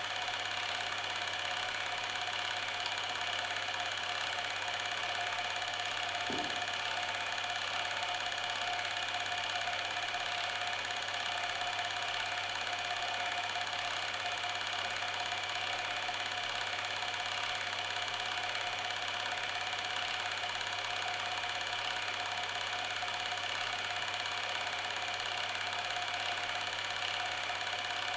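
A small motor-driven machine running steadily: an even mechanical drone with several steady tones that does not change.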